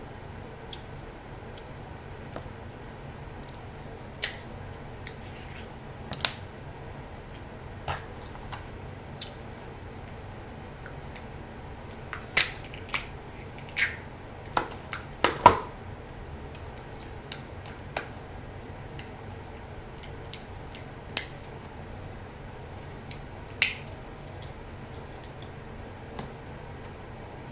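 Scissors snipping through snow crab leg shells, the shells cracking: irregular sharp snips with pauses between, thickest about halfway through.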